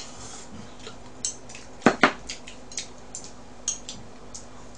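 Chopsticks clicking and clacking against a dish during eating: a scattered string of sharp clicks, the loudest pair close together about two seconds in.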